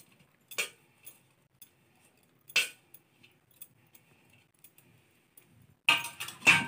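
A few sharp clinks of utensils and hands against an aluminium pressure cooker while chopped vegetables go in, with faint ticks in between. The loudest clink comes about two and a half seconds in, and two more come close together near the end.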